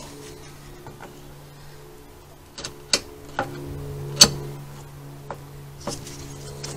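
Sharp clicks and knocks of a twist-lock cover being turned and handled on the car's rear suspension, over a steady low hum.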